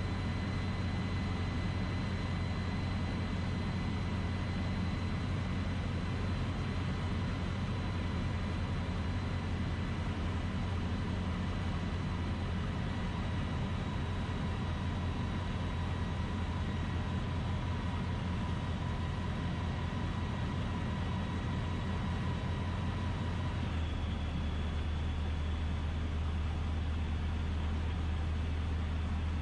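Steady drone of a DynAero MCR01 ultralight's piston engine and propeller, heard inside the cockpit. About 24 seconds in, the engine note steps down to a lower pitch as the revs drop during the descent.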